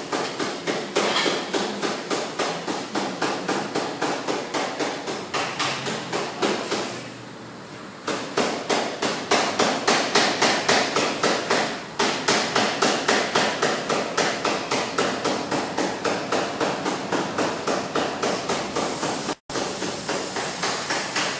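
Paintless dent repair tapping: a knockdown tool or PDR hammer tapping rapidly and evenly on car body metal, about four light taps a second, with a pause of about a second partway through, levelling the dent without harming the paint.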